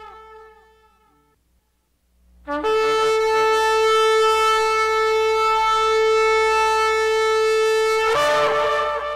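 Shofar blowing. The end of one blast fades away, and after a short pause a long single blast starts about two and a half seconds in. It holds one steady pitch for over five seconds, then wavers upward and breaks near the end.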